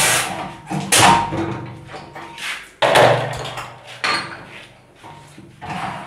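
Hand-operated glass-bottle soda filling machine being worked: four or five sudden clanks of its lever and brass filling head, each trailing off in a short hiss of released CO2 gas.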